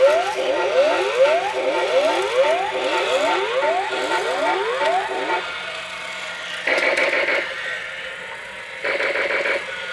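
A toy robot's electronic sound effect through its replacement speaker: a quick string of identical rising siren-like sweeps, about three a second, that stops a little past halfway, followed by two short buzzy electronic bursts near the end.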